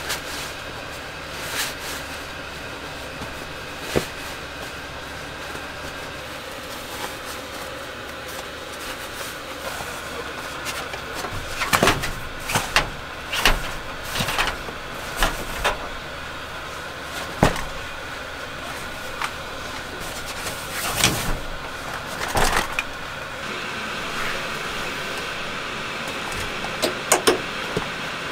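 Gear being handled and stowed inside a camper van: scattered knocks, clicks and rustles of fabric bags and organizer pouches, with a steady low hum underneath.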